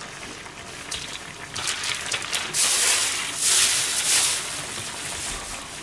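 Thin plastic bag being handled and crumpled, rustling and crinkling: a few light rustles at first, then two louder stretches of crackling about halfway through.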